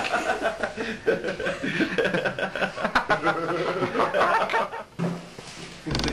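Several people's wordless voices in short, broken sounds, with no clear words, dying away about five seconds in. Music starts right at the end.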